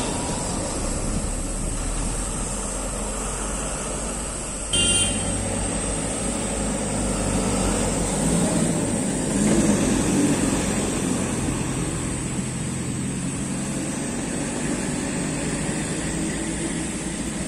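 Heavy diesel trucks' engines running as they pass round a hairpin bend, a steady low rumble that grows louder around ten seconds in as a truck comes through the curve. A short horn beep sounds about five seconds in.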